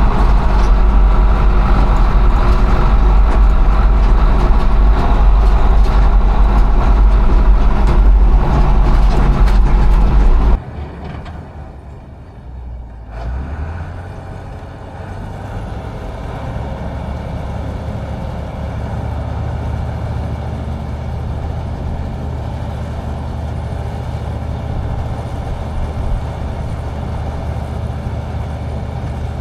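Combine harvester engine running steadily, loud and close for about ten seconds, then cutting off suddenly; a couple of seconds later a quieter, lower engine sound picks up and runs on steadily.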